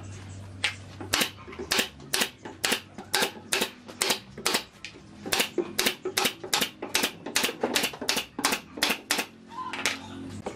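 Hammer striking wood in a quick, steady run of sharp knocks, about three blows a second.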